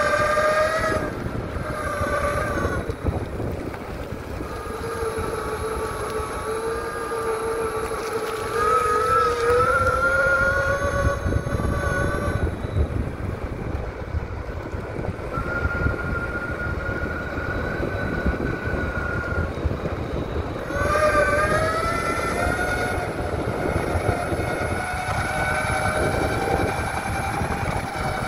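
Electric mountainboard's motors whining while riding, the whine sliding up and down in pitch as the board speeds up and slows, over a steady low rumble of the wheels rolling on the ground. The whine fades out for a few seconds in the middle and comes back rising after about 21 seconds.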